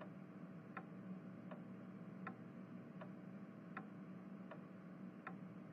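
Wall clock ticking softly and evenly, about one tick every three quarters of a second, over a faint steady hum of room tone.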